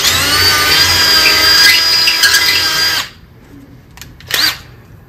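Cordless drill running at a steady speed with a 15/64-inch bit, drilling out the remains of a broken 1/4-inch bolt in a steel bracket, close to the thread size. It stops abruptly about three seconds in, followed by one brief short noise about a second later.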